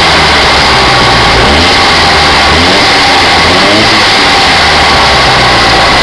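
48cc motorized bicycle engine running loudly, revving up and back down around the middle, with steady high-pitched whine tones throughout; this is the strange noise the owner is trying to pin down.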